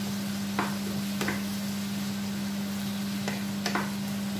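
Wooden spatula stirring a frying pepper-and-onion mixture in a pan, with a steady sizzle and a few sharper scrapes of the spatula against the pan, about four in all. A steady low hum runs underneath.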